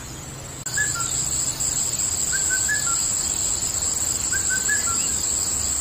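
Steady high-pitched chirring of crickets that starts abruptly about half a second in, with a few short, faint bird chirps over it.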